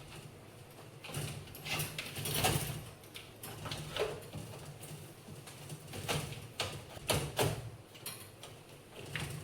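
Irregular clicks, knocks and short scrapes of parts being handled as a microwave's fan motor cover, with its new motor and fan blade, is fitted back into the housing.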